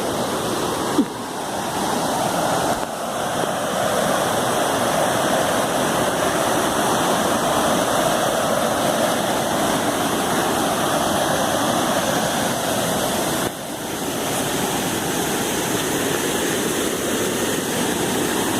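Waterfall pouring steadily into a natural rock pool, a continuous rushing of water.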